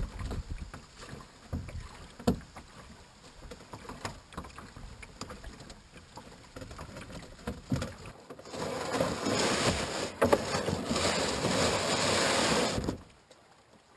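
Scattered knocks and thumps of gear being handled in a boat. About eight seconds in, a loud rushing hiss starts and lasts about four seconds, then cuts off abruptly.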